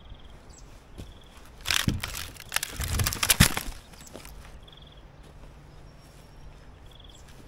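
Sawn hardwood log rounds being shifted and dropped by hand. A cluster of wooden knocks and scraping comes about two seconds in and lasts under two seconds, with a couple of sharp knocks near its end. Short bird chirps are heard now and then.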